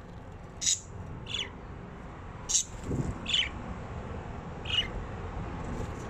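Pet budgerigars chirping: about five short, sharp calls spread across a few seconds, over a low steady rumble.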